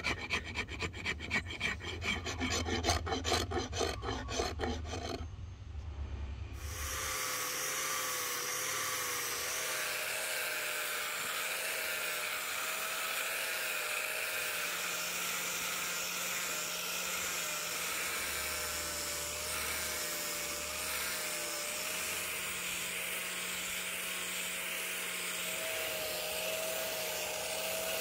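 A hand file scrapes in quick back-and-forth strokes across a rosewood axe handle for about the first five seconds. After a short break, a Bosch GWS 060 angle grinder fitted with a sanding pad runs steadily, sanding the handle, with a steady, slightly wavering tone.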